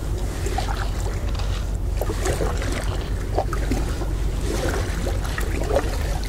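Wind buffeting the microphone as a steady low rumble, with water splashing and lapping irregularly around a kayak on open water.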